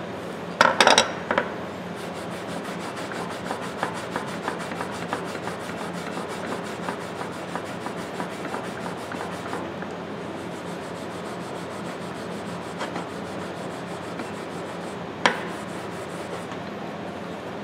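Fine 0000 steel wool rubbed briskly back and forth over the freshly blued steel jaw of large slip-joint pliers, a steady scratchy rubbing in quick even strokes that buffs the blued finish to an even colour. A few knocks about a second in and one more near the end.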